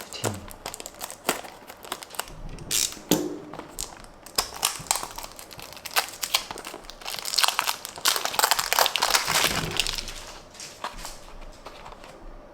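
Tomica toy-car packaging, a small cardboard box and its plastic wrapping, being opened and handled by hand: irregular crinkling and rustling with many sharp clicks and taps.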